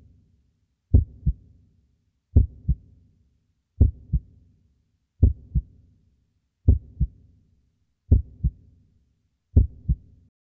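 Heartbeat sound, a lub-dub of two low thumps, the first one louder. It repeats seven times, about one and a half seconds apart, and stops near the end.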